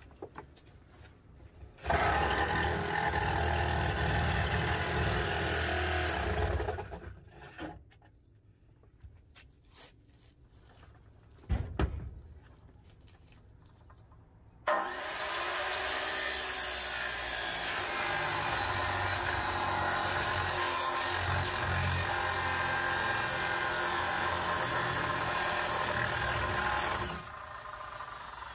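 Electric power tools cutting the rusted body sheet metal of a 1967 Chevrolet Impala. A reciprocating saw runs for about four seconds, then a short knock sounds in the pause. Then a disc cutter starts abruptly and cuts steadily for about twelve seconds.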